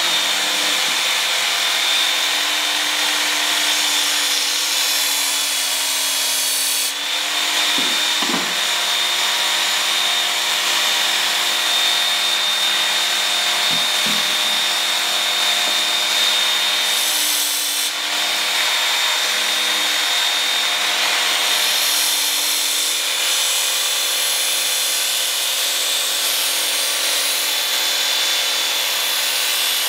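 Work Sharp Ken Onion Edition electric belt sharpener running steadily with a high motor whine, its coarse belt (about grit 80) grinding the steel of a bushcraft knife's edge and throwing sparks. This is heavy stock removal, reprofiling a dull edge into a wide convex bevel.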